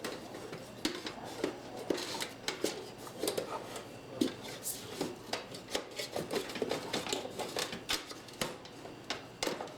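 Hands working cables and parts inside a desktop computer case as a component is plugged in: irregular small plastic clicks, taps and rustling.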